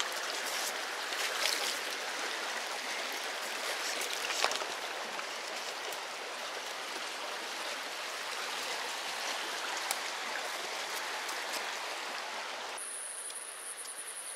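Creek water running over rocks, a steady rushing with a few faint clicks. Near the end the water sound drops off suddenly and a steady high-pitched buzz sets in.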